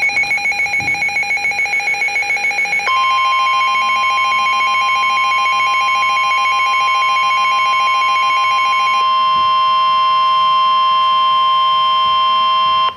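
NOAA Weather Radio warning alarm for a severe thunderstorm warning. A receiver's fast pulsing alert beep plays first; about three seconds in, the steady 1050 Hz warning alert tone starts under it. The pulsing stops around nine seconds in, and the steady tone cuts off sharply near the end.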